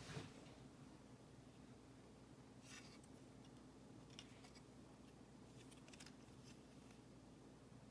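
Faint, scattered clicks of plastic Lego pieces being handled and pressed together, over a low steady room hum.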